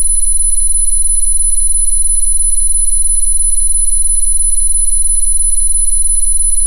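Electronically generated 'healing frequency' tone: a loud, steady, high-pitched whine with several fainter steady tones beneath it and a low pulsing hum, unchanging throughout.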